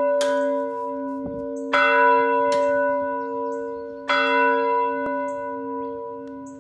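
Church bell swinging in its yoke and ringing, struck about every two seconds, each stroke humming on at a steady pitch as it fades.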